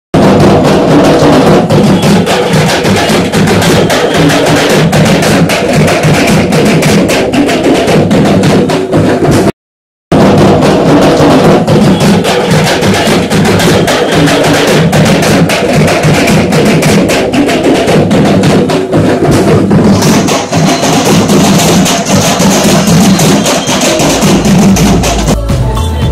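Loud drum-heavy music, with a dense run of percussion strikes. It cuts out completely for about half a second roughly ten seconds in.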